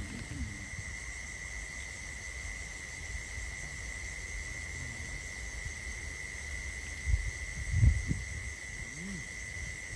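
Night insects, crickets, chirping in one steady high-pitched chorus over a low rumble, with a couple of brief low sounds about seven to eight seconds in.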